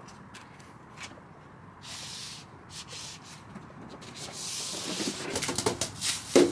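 Rubbing and scuffing of hands in disposable plastic gloves pressing minicell foam strips down onto a van's metal floor tacky with spray adhesive, with scattered small clicks. The rubbing grows louder and busier in the last couple of seconds.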